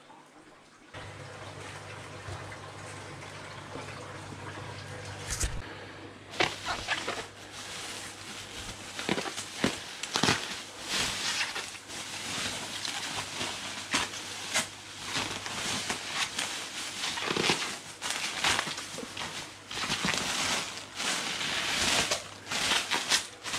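Bagged fish being unpacked: plastic fish bags crinkling and water sloshing, with irregular clicks and knocks, and a low steady hum in the first few seconds.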